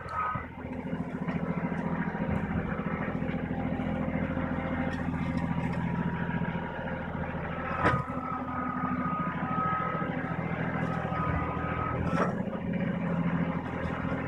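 Tractor engine idling steadily, with two sharp knocks, one about eight seconds in and another about four seconds later.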